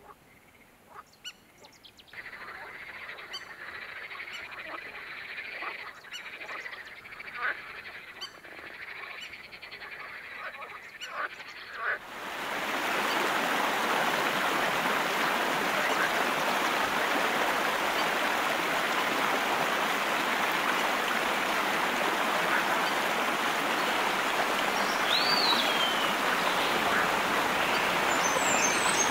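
Quiet outdoor ambience with scattered short animal calls and clicks. About twelve seconds in, the steady rush of a shallow river running over stones starts suddenly and stays loud, with one short falling bird chirp near the end.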